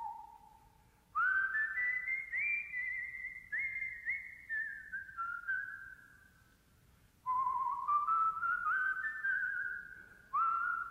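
A tune whistled by a person: one melodic line with a wavering vibrato, moving in stepped notes. A phrase begins about a second in, climbs and then steps down. There is a short pause, and a new phrase starts about seven seconds in.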